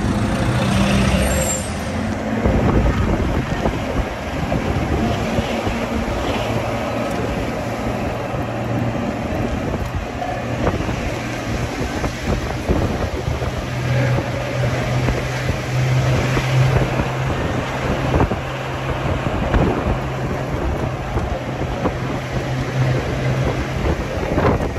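Jeep driving on a rough track: a steady engine note under a constant noise of rattling, jolts and road noise.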